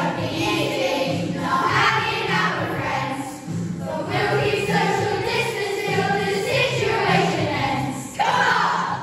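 A children's choir singing a pop song together over recorded backing music with a steady, repeating bass line.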